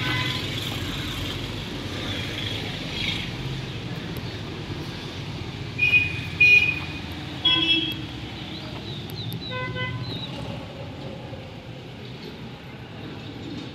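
Steady road traffic running, with a few short vehicle horn toots between about six and ten seconds in.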